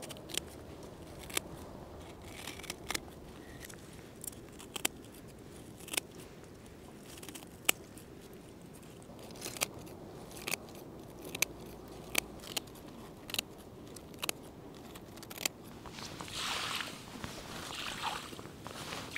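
Scissors snipping the brittle spines off a long-spined sea urchin: a series of sharp clicks, roughly one a second and unevenly spaced. In the last few seconds, water poured from a bucket splashes onto concrete.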